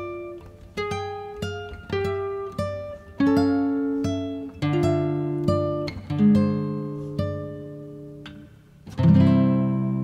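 Background music on a guitar: single plucked notes, each dying away, then a loud strummed chord about nine seconds in that rings on.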